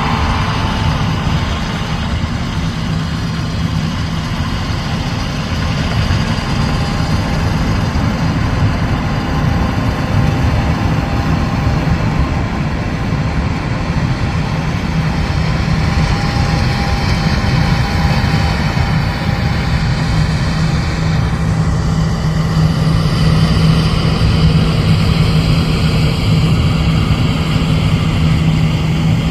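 Heavy diesel farm machinery running steadily during a soybean harvest, with a low engine drone that grows stronger in the last third.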